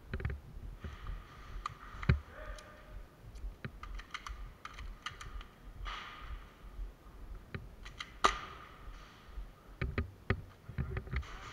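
Irregular sharp clicks and taps of airsoft guns firing and BBs hitting hard surfaces, the loudest crack about eight seconds in, amid the rustle of the player's moving gear.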